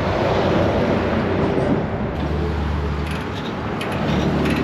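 A heavy engine running steadily amid broad noise, its low drone deepening and strengthening about two seconds in.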